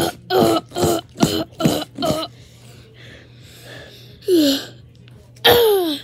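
A voice making short, rapid grunts and fight noises, about five in quick succession, then two longer cries falling in pitch near the end.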